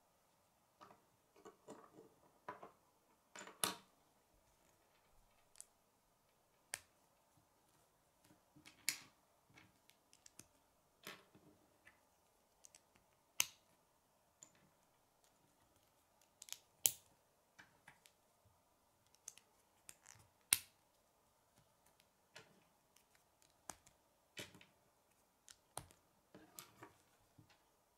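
Plastic K'nex rods and connectors being snapped together by hand: irregular clicks and snaps, a handful louder than the rest, with soft handling of the pieces in between.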